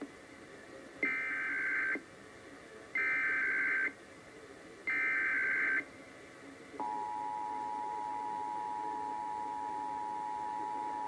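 Emergency Alert System Required Monthly Test on the radio: three bursts of SAME digital header data, each about a second long and a second apart, then about seven seconds in the steady two-tone EAS attention signal starts and holds.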